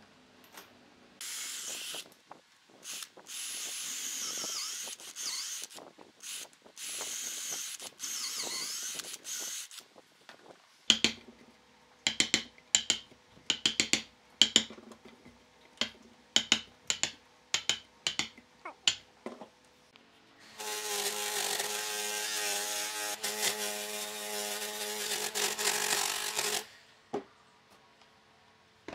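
A wooden mallet strikes a steel chisel cutting into a log's bark, a rapid series of sharp knocks over about eight seconds. Before it come bursts of scraping on wood, and afterwards a power-tool motor runs steadily for about six seconds.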